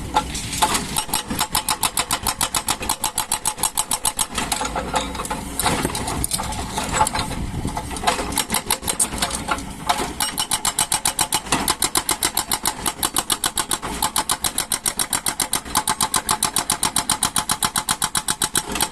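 Excavator engine running with a fast, even pulsing beat.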